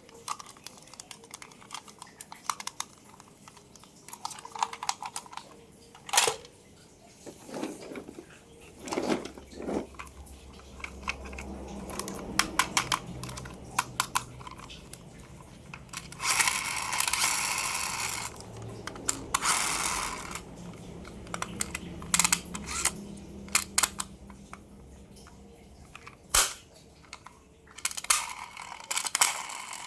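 Toy cars and their plastic packaging being handled: a string of small clicks and taps, three bursts of plastic crinkling, and a low rumble through the middle.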